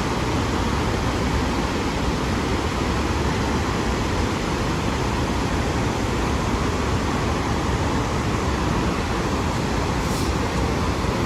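Steady roar of the Iguaçu Falls waterfalls, a loud, even rush of falling water with no change through the stretch.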